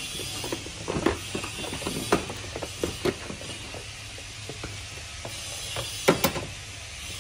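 Hand tools working on a scooter's body panels and fasteners: irregular metallic clicks and knocks, a few louder ones about a second in and again around six seconds in.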